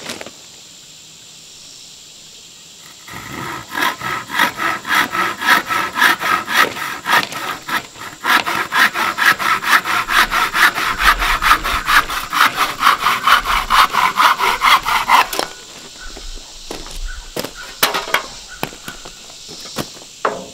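Hand saw cutting through a thin wooden board in quick, even back-and-forth strokes, about two to three a second, with a short break partway through. The sawing stops about fifteen seconds in, followed by a few light knocks.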